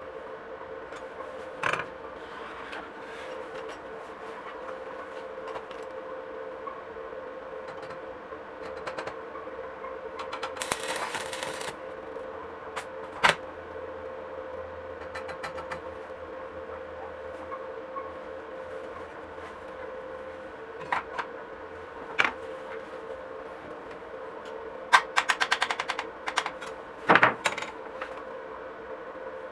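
Steady hum with scattered sharp metallic clicks and knocks as galvanized C-channel steel pieces are set in place for stick welding, and a quick rattle of light taps near the end.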